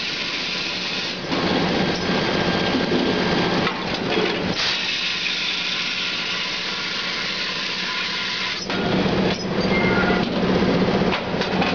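Automatic onion dry-peeling machine running: a steady motor hum under a dense mechanical rushing noise as onions pass through it. The noise changes character a few times, about a second and a half in, about four and a half seconds in and again near nine seconds.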